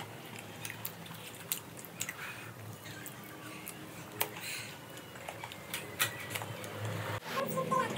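Mouth sounds of eating by hand: chewing soft stewed potatoes and sucking food off the fingers, with scattered small lip smacks and clicks.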